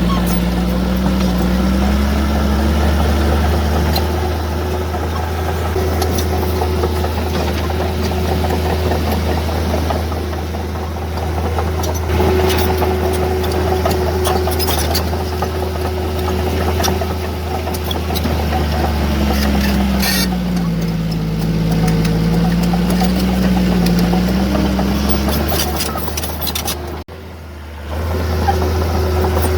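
Heavy diesel engine of earthmoving machinery running steadily, its pitch sagging and recovering twice, with a few scattered clanks. The sound dips briefly near the end.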